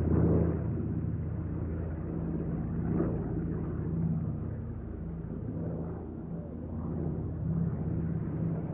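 Airplane in flight: a steady low engine drone and rumble that swells slightly now and then.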